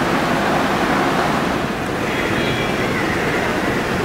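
Steady, wind-like rushing noise on the camera's microphone, with faint thin high tones from about halfway through.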